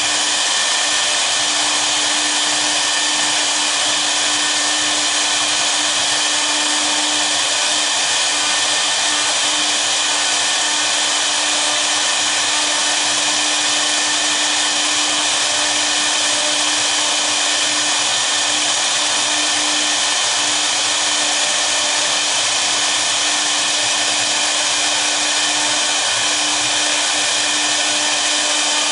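Two spindles of a 1325 double-spindle CNC router running together while their V-bits engrave a sheet. The sound is a steady, even hiss with one constant tone held throughout.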